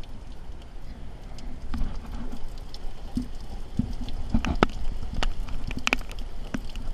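Hurricane wind buffeting the microphone as a steady low rumble, with scattered sharp taps and clicks that come thickest and loudest about four to six seconds in.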